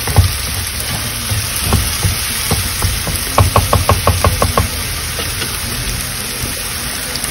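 A pale paste sizzling in a nonstick frying pan as a thin metal utensil stirs and scrapes it. About halfway through comes a quick run of about nine taps of the utensil against the pan, some eight a second.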